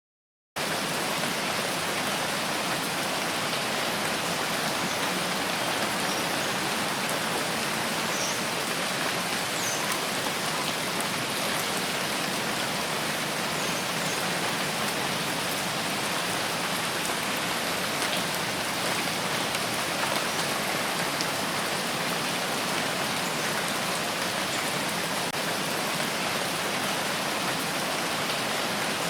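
Steady rain falling: an even hiss with faint scattered drop ticks, starting abruptly about half a second in.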